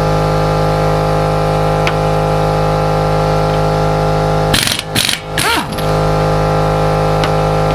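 Impact wrench spinning off a wheel's lug nuts in two short bursts about five seconds in, each winding down in pitch as the trigger is released, over a steady mechanical hum.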